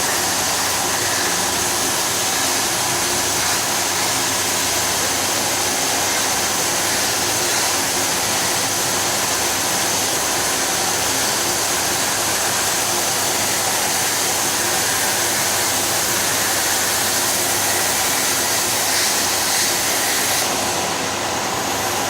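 Steady, loud hissing and humming of workshop machinery on a CNC plasma cutting setup, with the high hiss changing about 20 seconds in.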